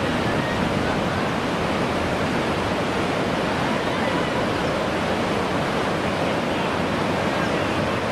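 Whitewater rapids of a canoe slalom course rushing steadily, an even, unbroken noise of churning water.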